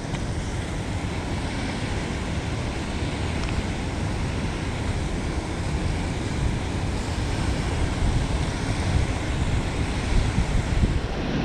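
Water rushing over a dam spillway, a steady noise, with wind buffeting the microphone.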